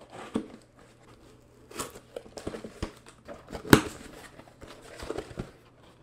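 A cardboard package being opened by hand: irregular crinkling and tearing of cardboard and paper packing, with one sharp crack, the loudest sound, about two-thirds of the way through.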